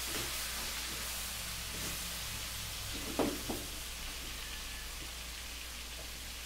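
Pork and chicken pieces sizzling in hot oil in a wok, a steady frying hiss, with two brief louder sounds a little after three seconds in.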